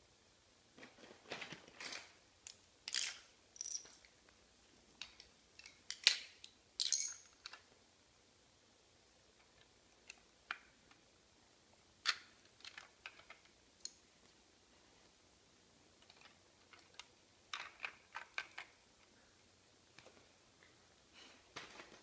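Plastic Lego bricks clicking and clattering as they are pressed together and moved about on a tile floor, in scattered groups of small clicks with quiet gaps between; the sharpest click comes about six seconds in.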